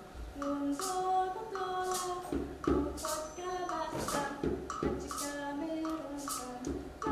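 A banjo playing a song with singing over it and a steady percussive beat.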